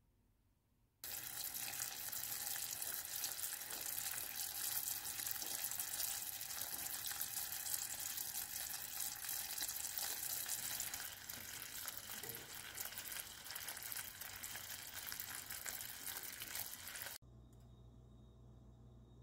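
Sugar syrup boiling hard in a stainless steel saucepan: a steady, dense bubbling that cuts in about a second in and stops suddenly near the end.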